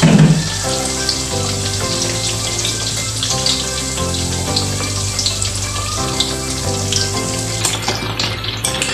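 Beaten egg sizzling as it fries in hot oil in a wok, with background music playing throughout. A short low thud comes right at the start, and near the end a spatula scrapes and stirs as the egg is scrambled.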